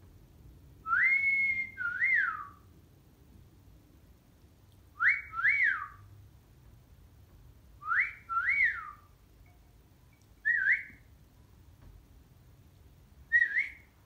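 Male cockatiel whistling a tune in five separate phrases, each made of quick rising-and-falling whistled notes; the first phrase rises to a held note before a second swoop, and the last two phrases are short single swoops.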